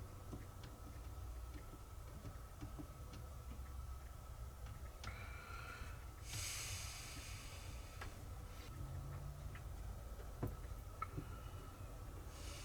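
Faint small clicks and taps of tools and small parts being handled during bench work on the drone's wiring. A short hiss comes about six seconds in, over a steady faint hum.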